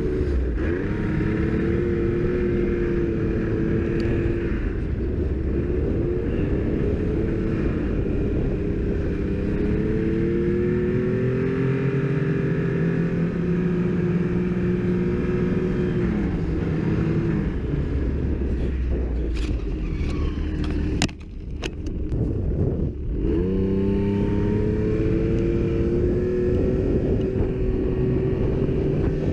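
Snowmobile engine running under way, its pitch rising and falling with the throttle. About two-thirds of the way through it drops away for a couple of seconds amid a few knocks, then comes back up to speed.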